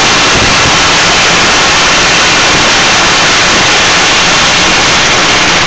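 Firework fountain spraying sparks with a loud, steady hiss.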